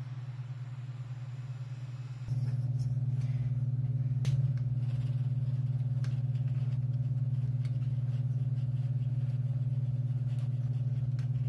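A steady low hum that gets louder about two seconds in, with scattered faint clicks and one sharper click a little after four seconds.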